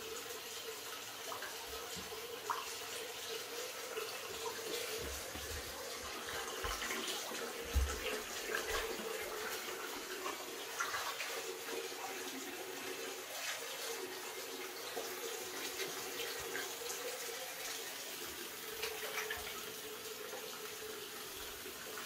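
Shower running onto a tiled shower floor: a steady hiss of falling and splashing water. A few soft thumps and splashes come through it, the loudest about eight seconds in.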